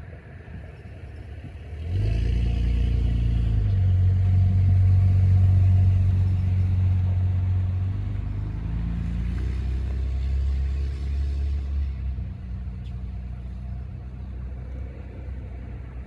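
A motor vehicle's engine running close by, a low steady drone that starts suddenly about two seconds in. Its pitch shifts a couple of times, and it fades down after about twelve seconds.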